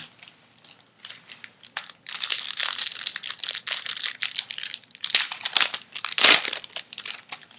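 Foil wrapper of a 2007 Bowman Chrome baseball card pack crinkling and tearing as the pack is opened. It comes in rustling spells from about two seconds in, and the loudest crackle is near the end.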